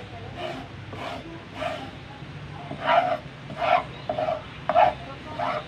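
A dog barking repeatedly in short barks, with a pause about two seconds in.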